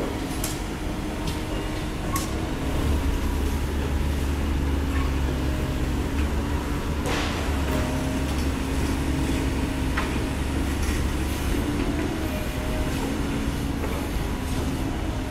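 Komatsu PC130 hydraulic excavator's diesel engine running steadily under load with a deep rumble and a steady hum, which strengthens about three seconds in. A few sharp knocks sound over it, about seven and ten seconds in.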